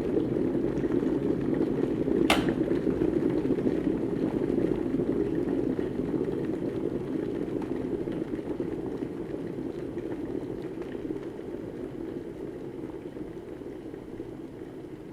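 Electric kettle at the boil, a low bubbling rumble. About two seconds in its switch clicks off sharply once, and the boiling then slowly dies away.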